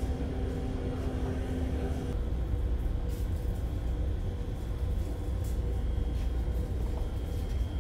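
Steady low drone of the ferry's onboard machinery and ventilation, with a higher steady hum that stops about two seconds in.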